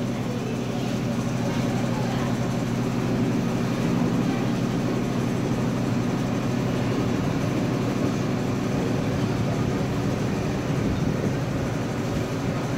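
Steady background noise: a constant low hum with an even hiss over it.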